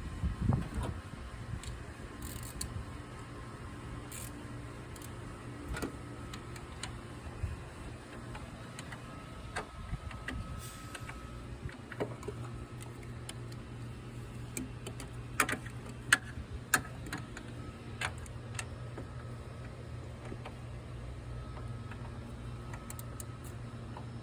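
Scattered clicks and small metallic taps of hand tools working on bolts, with a cluster of sharper clicks about two-thirds of the way through, over a steady low hum.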